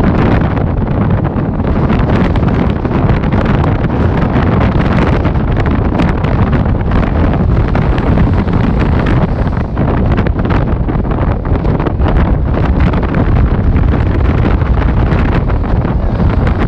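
Loud wind buffeting the microphone, mixed with rough surf breaking against a seawall and washing across the promenade.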